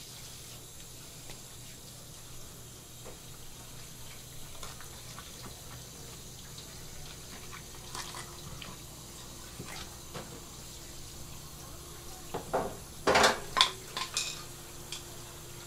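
Sink faucet sprayer running steadily, water splashing onto a large red sea bream on a plastic cutting board, with scattered small clicks. A short cluster of loud knocks comes about three quarters of the way through.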